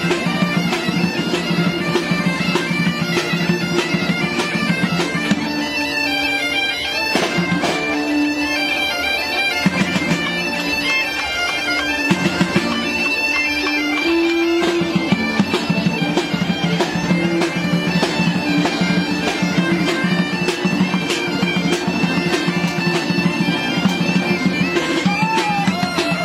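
Medieval folk-style instrumental music: bagpipes playing a melody over a steady drone, with regular drum strikes.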